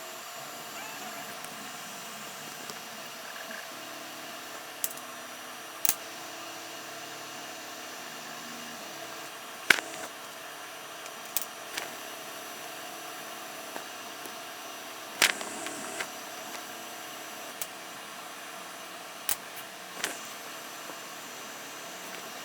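Computer mouse clicks, sharp and scattered about eight times, over a steady fan-like hum.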